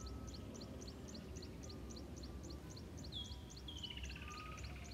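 Faint birdsong: a steady run of short high chirps, about four a second, with a falling trill joining about three seconds in.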